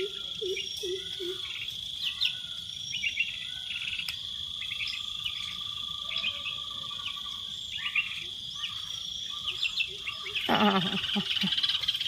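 Small birds chirping in scattered short calls over a steady, high-pitched drone of insects.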